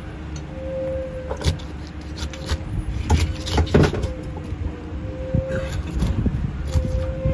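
Fish being cut against an upright curved blade on a wooden board, with sharp cuts and knocks in short clusters, over a steady low rumble of engines.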